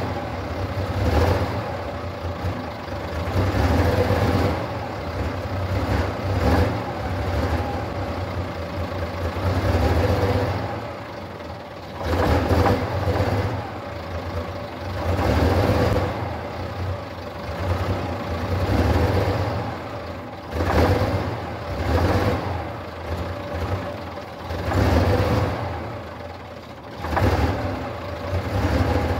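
Star 200 truck's six-cylinder diesel engine running cold after a frosty-morning start. Its speed swells and falls back every two to three seconds, each rise louder and rougher than the idle between.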